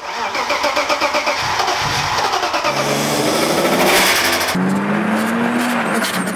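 Car engine revving, its pitch changing in steps and then climbing steadily after a sudden change about two-thirds of the way in.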